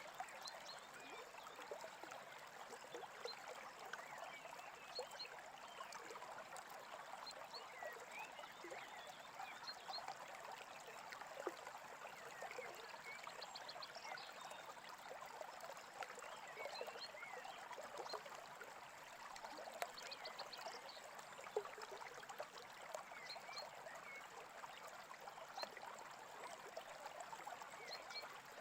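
Quiet recording of a small stream babbling steadily, with birds chirping here and there and a brief rapid trill about halfway through.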